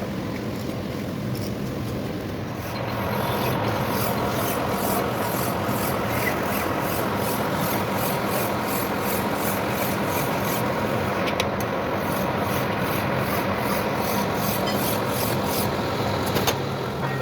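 A steel pin being filed or rubbed down by hand, rasping in even back-and-forth strokes about two to three a second, starting about three seconds in and stopping just before the end, over a faint steady hum.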